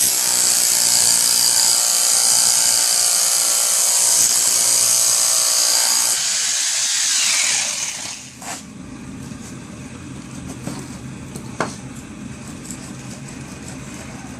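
A handheld electric power tool working on brick runs at full speed with a high-pitched whine, then is switched off about seven seconds in and winds down with a falling pitch. After that a quieter low steady hum remains, with a few sharp clicks and knocks.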